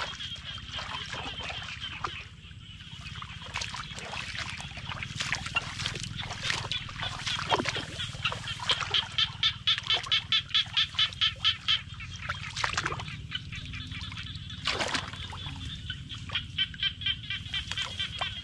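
Hands splashing and groping in shallow muddy water, with scattered short splashes. Behind it an animal calls in quick pulsing runs, loudest for about three seconds around the middle at about five calls a second.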